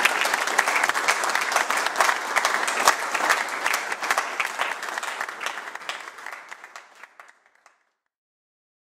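Audience applauding, dense clapping that thins out over the last few seconds and stops about seven and a half seconds in.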